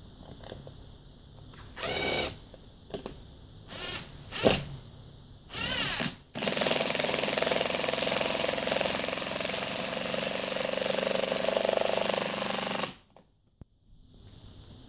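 Ryobi 18V cordless impact driver driving screws into a couch leg's mounting block. It runs in a few short bursts, then in one long run of about six and a half seconds that stops abruptly.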